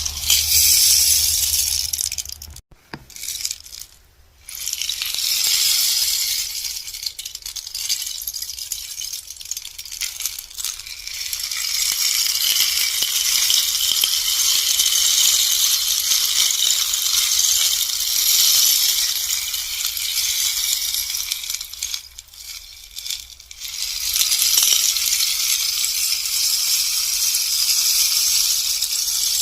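Bamboo rainstick: a steady, hissing cascade of fine rattling like falling rain, mostly high-pitched. It cuts off suddenly about two and a half seconds in, comes back in a couple of short spurts, then builds again, and it thins out once more around 22 seconds in before resuming.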